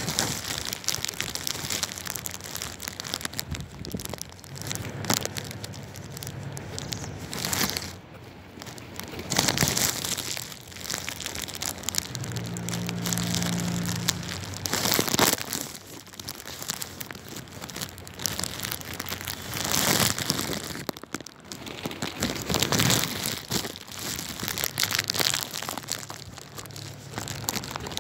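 A flock of feral pigeons feeding on bait, with a constant crackling rustle and repeated loud flurries of wing-flapping as birds take off and land.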